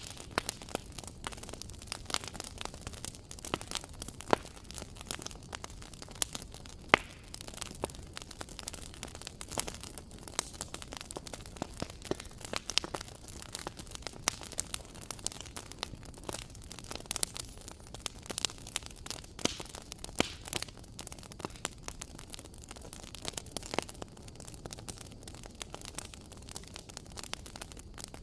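Wood fire crackling in a fireplace: a steady stream of small irregular pops and snaps over a soft low rumble, with a few sharper, louder snaps now and then.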